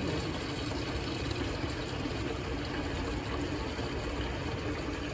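Self-serve reverse-osmosis water dispenser running, filling a blue plastic five-gallon jug with a steady rush of water.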